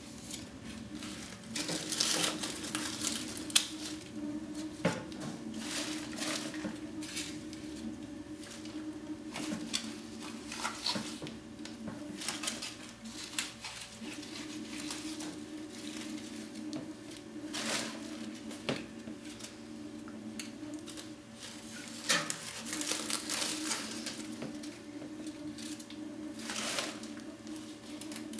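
Gloved hand pulling old magnolia leaves and soggy sphagnum moss out of a terrarium's substrate: irregular rustling and crackling in uneven clusters. A steady low hum runs underneath.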